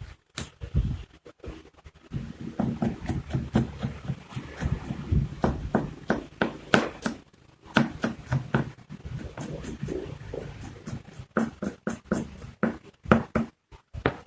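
Kitchen knife mincing shallots on a cutting board: quick, uneven chopping strokes, a few a second, with short pauses between runs.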